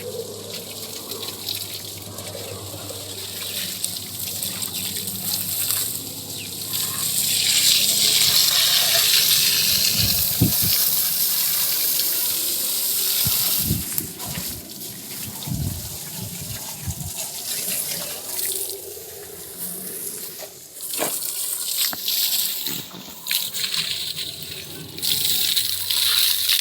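Water jet spraying against a JCB 3DX backhoe loader being washed, a steady hiss that swells and eases in uneven gushes. A few dull low thumps come in the middle.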